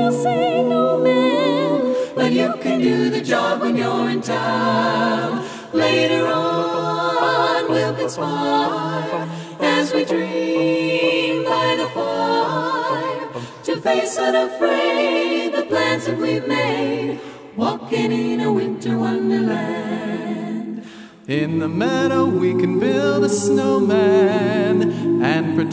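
Background music: a group of voices singing a cappella, holding long sung notes with vibrato, with short pauses between phrases.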